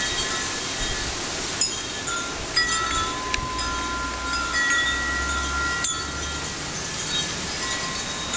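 Wind chimes ringing, struck again and again by gusts, with tones that hang on for a second or more, over the steady rush of strong wind from the remnants of a hurricane.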